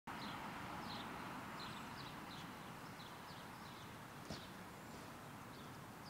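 Birds chirping in short, high, falling notes, a few a second, over a faint steady background hiss, with one sharp click about four seconds in.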